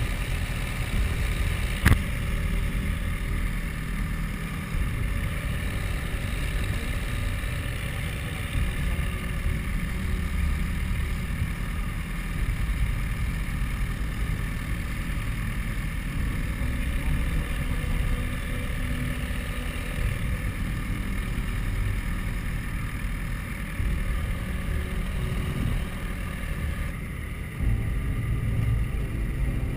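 A de Havilland Chipmunk's piston engine running steadily at low power, heard from inside the cockpit, with one sharp click about two seconds in.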